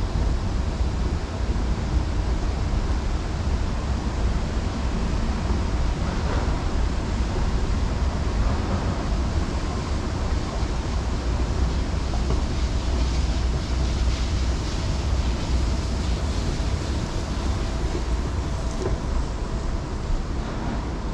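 Wind buffeting the camera's microphone: a steady low rumble of noise with no clear events, the same while riding the escalator and walking out into the open.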